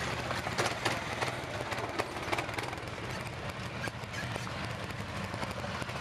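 Quad bike engines running at low speed as several ATVs pass one after another on a rough trail, with scattered clicks and knocks in the first couple of seconds.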